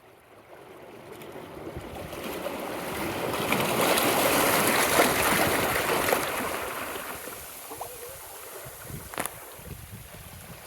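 A small sea wave washing in over rocks and draining back: a rushing hiss of water that builds for a few seconds, peaks, then fades into trickling. A brief sharp click comes near the end.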